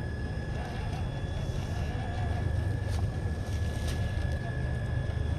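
Traxxas TRX-4 RC rock crawler's electric motor and geared drivetrain running as it crawls over rock: a steady high whine over a low rumble.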